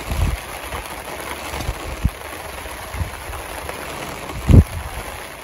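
Storm rain and gusting wind: a steady hiss of rain with several low thumps of wind gusts, the strongest near the end.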